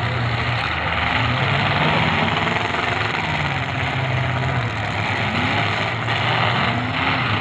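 Engines of several demolition derby cars running together, their pitches rising and falling as the drivers rev them, over a dense steady rumble.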